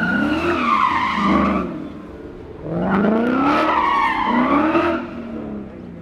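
2017 Ford Mustang coupe driven hard through a slide, engine revving up in two loud bursts with the tyres squealing through each, then easing off about five seconds in.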